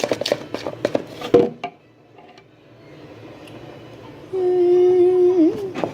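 A metal spoon clicking and clinking quickly against a bowl while stirring thick slime, then a pause. Near the end a steady held tone, like a hummed note, sounds for about a second and bends in pitch as it stops. It is the loudest sound here, and the spoon clinks start again just after it.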